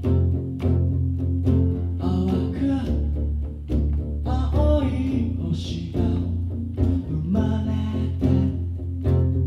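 An acoustic duo playing an instrumental passage: acoustic guitar strummed steadily, about twice a second, over an acoustic bass guitar line.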